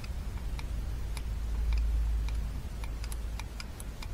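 Tip of an ordinary wood screw ticking and catching as it is drawn along a channel in a diesel engine's injector seat, giving faint, irregular clicks a few times a second. The clicks are the sign of a groove in the seat that the screw tip can follow.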